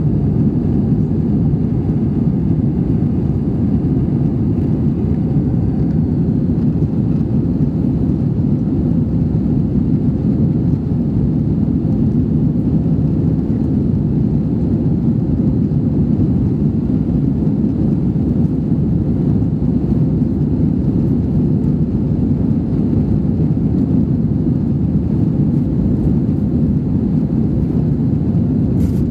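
Steady, low-pitched drone of jet engines and rushing air heard inside a jet airliner's cabin in flight.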